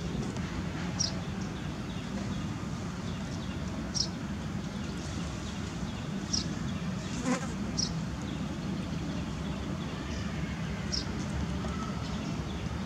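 An insect buzzing over a steady outdoor hum, with short high chirps every few seconds and a single sharp click about seven seconds in.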